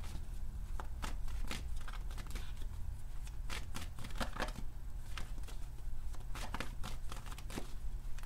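A tarot deck being shuffled in the hands: quick, irregular card-on-card slaps and brushes, over a low steady hum.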